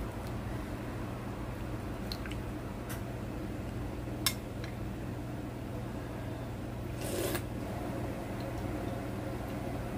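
Ladle clicking lightly against a ceramic bowl and a pot as soup is ladled out: a few small clinks, the sharpest about four seconds in, and a brief swish about seven seconds in, over a steady low hum.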